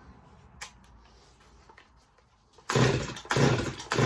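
Stihl MS230 chainsaw's two-stroke engine starting about two and a half seconds in and running in loud, uneven surges, about three in the last second and a half, without settling to an idle. This follows a quiet stretch with a couple of faint clicks.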